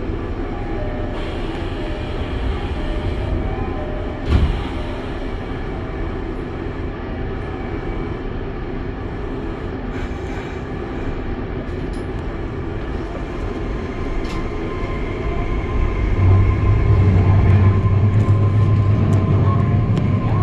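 Kobe Municipal Subway 6000-series train standing at a station, its equipment humming steadily, with a single thump about four seconds in. About sixteen seconds in it starts to pull away: the traction motors' low hum grows louder and a rising whine comes in as it speeds up.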